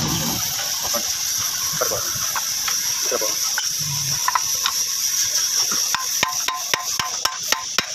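Workshop noise: a steady hiss with scattered clicks, then from about six seconds in a fast run of light metallic taps with a ringing note, about four a second, like a hammer tapping on metal.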